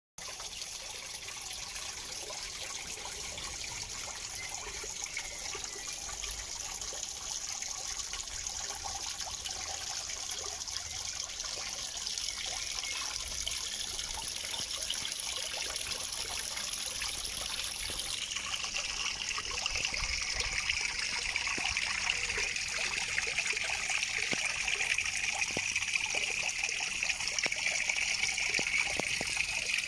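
Tiny garden waterfall trickling into a small pond: a steady splashing trickle that grows gradually louder, changing in tone about two-thirds of the way through.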